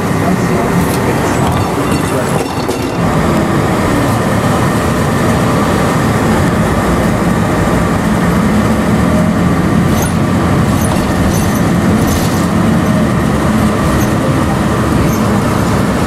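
Steady, loud running noise of a moving vehicle, with a low hum and a few light clicks about ten to twelve seconds in.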